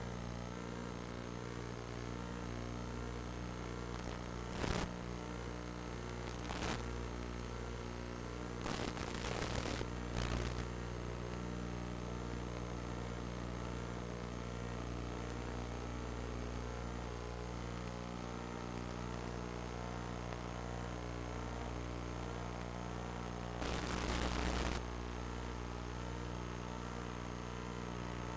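A steady electrical hum and buzz, broken several times by brief bursts of static-like hiss. The longest bursts come about nine seconds in and again near the end.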